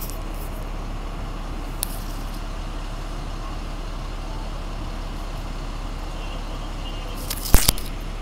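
Steady ride noise of a moving school bus heard from inside the cabin: the MaxxForce DT diesel engine running under the road noise. A brief loud clatter comes near the end.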